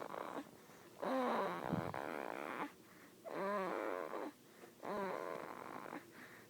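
Snoring: three long snores with a wavering pitch, one on each breath, separated by short quiet pauses.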